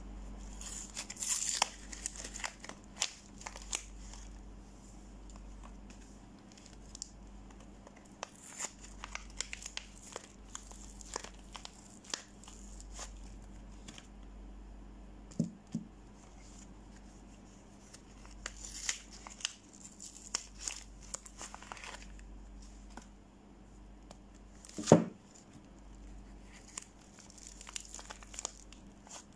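Hands tearing open and crinkling the plastic film wrappers of soap bars, in scattered crackles and rips. One much louder thump comes about three-quarters of the way through.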